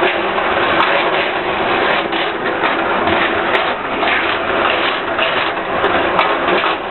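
Technofix Coney Island tin-plate roller-coaster toy running: a small tin car rattles steadily along the metal track, over a steady hum.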